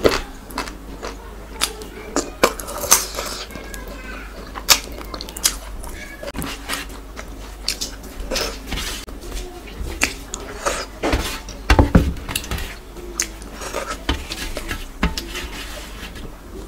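Close, wet eating sounds of soft khichuri eaten by hand: irregular mouth smacks and chewing, with fingers scraping and squishing the rice and curry across a steel tray.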